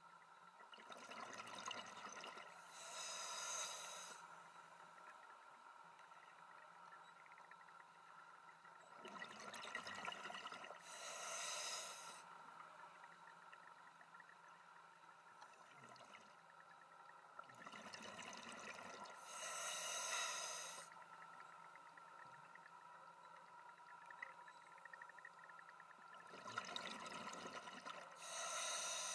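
Scuba diver breathing through a regulator underwater: four breaths about eight to nine seconds apart, each a softer inhale followed by a louder rush of exhaled bubbles, over a faint steady hum.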